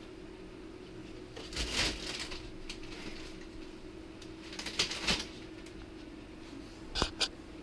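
A few short bursts of rustling and crinkling as a red fox noses at and paws plastic-wrapped packs of bottled water, over a low steady hum.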